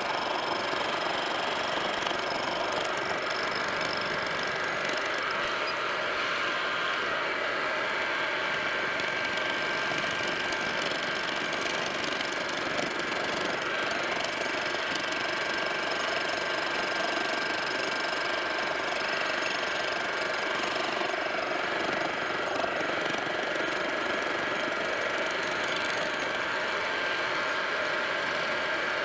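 Milling machine spindle running with a boring head fed into a casting, boring out a radius. The machine gives a steady running sound with several even tones, holding level throughout.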